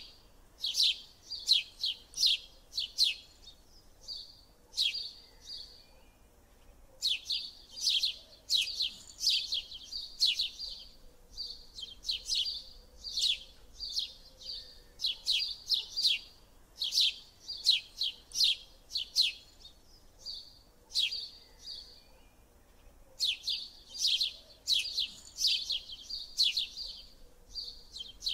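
A bird chirping in runs of short, sharp, high chirps, about three a second, with brief pauses between the runs.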